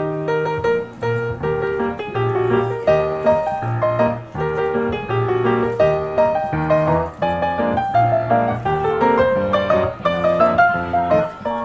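Background piano music: a melody over a steady bass line.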